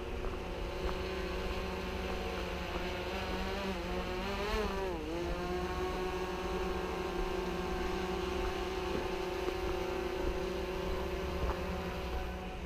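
DJI Phantom 3 quadcopter's propellers whining steadily in flight, the pitch wavering upward and then dipping sharply about four to five seconds in as the motors change speed. Wind rumbles on the microphone underneath.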